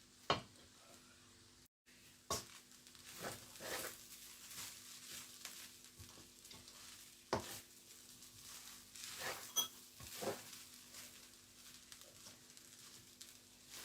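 Fried rice being stirred in a hot pan with a spoon: scattered scrapes and knocks of the spoon against the pan over a faint sizzle.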